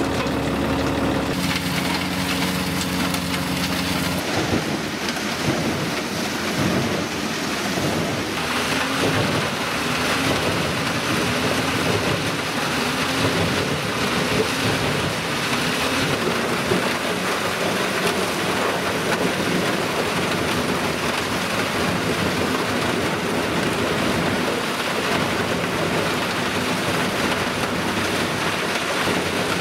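Eschlböck Biber 92 mobile wood chipper, driven by a tractor, chipping wood. A steady engine hum for the first few seconds gives way about four seconds in to a dense, continuous crackling rush of wood being chipped.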